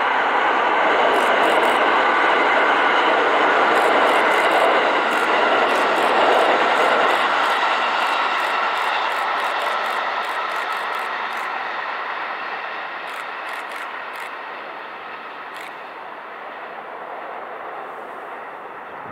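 A JR East 205 series (600 subseries) eight-car electric train running past. Its wheels on the rails make a steady sound with a hum, loudest over the first several seconds and then slowly fading as it goes away.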